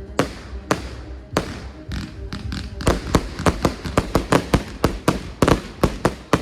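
Fireworks going off in a series of sharp bangs: a few spaced bangs at first, then a quick run of about three to four bangs a second from about halfway.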